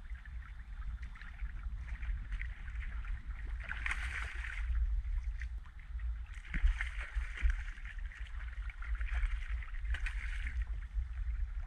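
Water splashing and sloshing as a hooked fish thrashes at the surface beside a kayak, loudest about four seconds in and again from about six to ten seconds in, over a steady low rumble of wind on the microphone.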